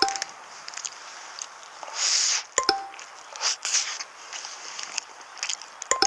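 Plastic food wrapper crinkling and clicking as it is handled, with a brief rush of rustle about two seconds in. A short two-note falling electronic blip sounds three times: at the start, about two and a half seconds in, and near the end.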